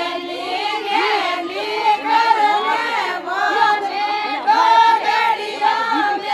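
A group of women singing a Marwari Fagan folk song together, several voices overlapping in a continuous melody.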